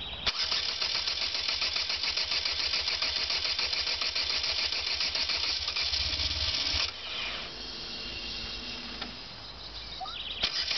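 Caterham Roadsport 125's starter motor cranking its Ford Sigma 1.6 engine, a fast clicking rattle lasting about six and a half seconds that stops without the engine catching. A fainter steady hum follows, and cranking starts again near the end.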